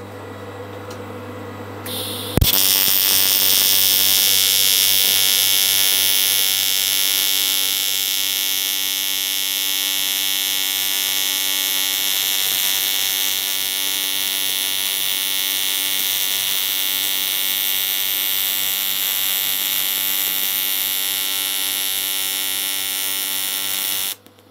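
AC TIG arc from an R-Tech TIG261 inverter welding a thick aluminium engine-crankcase casting at heavy amperage on the welder's easy-set defaults. After a brief hiss of gas, the arc strikes with a sharp crack about two seconds in and then runs as a steady buzz with a high hiss for about twenty seconds before cutting off suddenly near the end.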